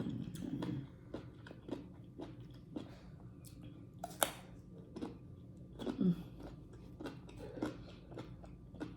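Close-up chewing of juicy fruit: wet mouth clicks and soft crunches at an uneven pace, with one sharper, louder click about four seconds in.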